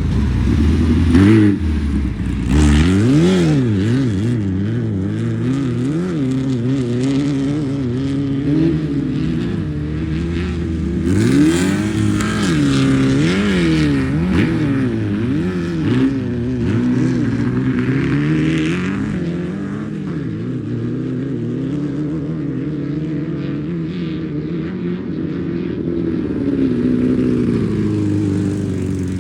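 Air-cooled VW-powered off-road race cars running past and revving, the engine pitch repeatedly rising and falling as they come and go, with several engines heard at once at times.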